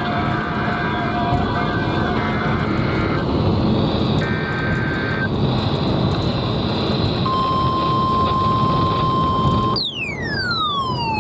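Weather radio alert tones over a steady rushing noise: short steady beeps in the first half, then a steady tone near 1 kHz, the NOAA Weather Radio warning alarm tone, for about two and a half seconds. Near the end it gives way to a loud electronic tone sweeping steeply down from high to low.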